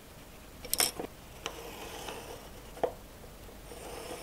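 Steel combination square clicking and knocking as it is shifted and set down on a thin sheet of soft wood, a handful of sharp knocks with the two loudest just under a second in and near three seconds in, with faint scratching between them.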